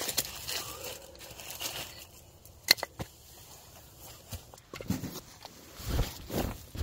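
Short split firewood pieces knocking together as they are stacked on the ground, with one sharp clack a little before the halfway point. Near the end comes shuffling and a rustle of a heavy wool blanket being handled.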